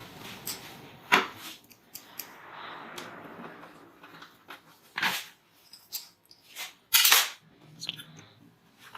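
A hard drive being handled and slid into a metal hard-disk cage: a scraping slide, then sharp metallic clicks and knocks, the loudest a double knock near the end.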